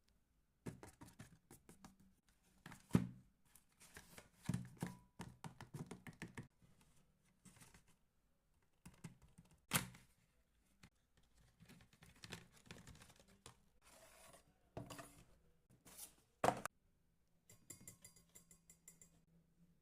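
A water bottle and its packaging being handled and opened: irregular rustling and small clicks, with a few sharper knocks, the loudest about three, ten and sixteen seconds in.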